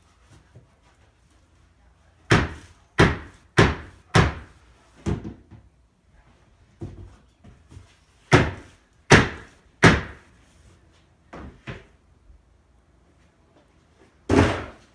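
A black plastic tote being banged hard against the edge of a worm bin, about ten sharp knocks in irregular groups, to shake worms and bedding out of it.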